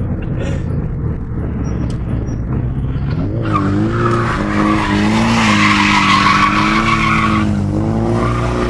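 Nissan 240SX drifting: steady engine and road noise, then from about three seconds in the engine revs high under load while the tyres squeal in a skid for about four seconds.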